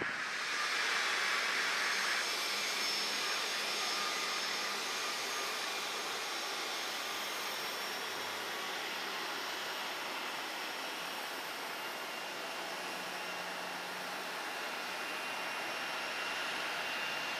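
Jet airliner engines running: a steady rushing roar with a thin high whine, loudest in the first couple of seconds and easing off slowly.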